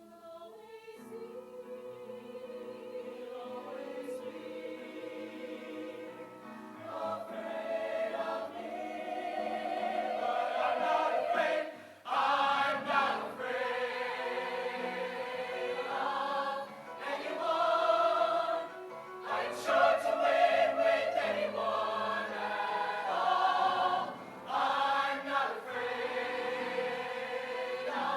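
High school show choir singing in harmony, swelling from a soft start to full voice within the first several seconds, in phrases with short breaks between them.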